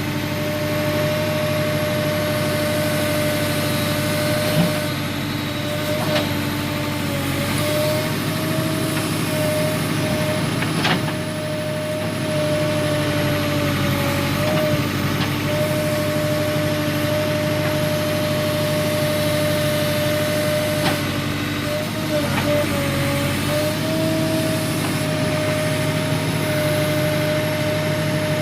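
Diesel engine of a tractor loader backhoe running steadily, with a constant whine that sags slightly in pitch now and then and a few short knocks.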